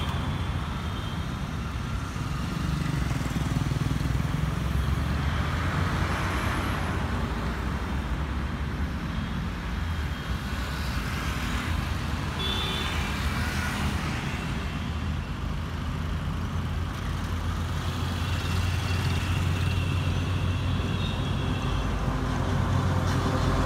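Road traffic on a multi-lane road: motorcycles, scooters and cars passing with a continuous low engine and tyre rumble. Near the end a heavy dump truck's diesel engine grows louder as it approaches.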